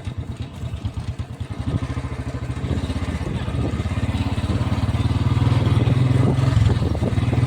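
Royal Enfield Bullet's single-cylinder engine running, its thumping exhaust beats growing quicker and louder as it picks up revs.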